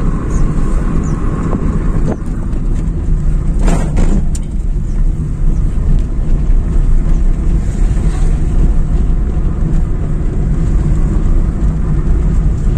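Wind buffeting the microphone in a steady, loud low rumble, with a single sharp knock about four seconds in.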